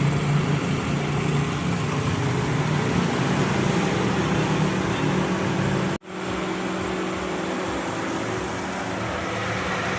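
Honda City's engine idling steadily with its newly fitted AC compressor engaged and running. The hum breaks off for an instant about six seconds in and carries on a little less deep.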